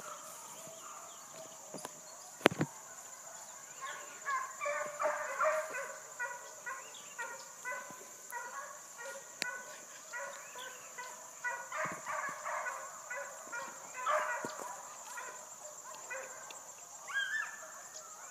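A pack of hounds baying in the distance, the cry of hounds running a fox: many voices in short, repeated, overlapping calls that build up from about four seconds in. A steady high-pitched whine runs underneath, and there is a single sharp knock about two and a half seconds in.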